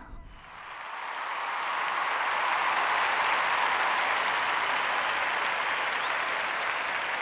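Applause, swelling up over the first couple of seconds and then holding steady.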